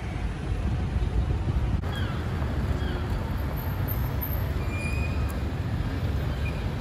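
Steady low rumble of a moving vehicle, with a few faint short high chirps over it.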